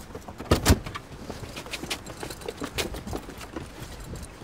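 Car door being opened: two sharp latch clicks about half a second in, followed by faint scattered clicks and rustling.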